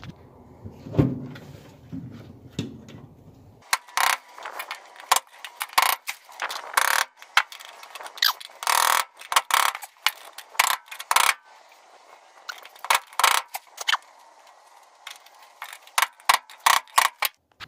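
Irregular metallic clinks, rattles and scrapes of hands and hand tools working in a fuel-pump access hole cut in a pickup's sheet-metal bed. The clinking starts about four seconds in and comes thick and fast from then on.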